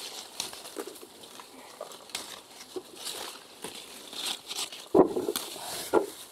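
Leaves and branches of aronia bushes rustling and crackling under hand-picking, with scattered light clicks and two louder dull knocks about five and six seconds in.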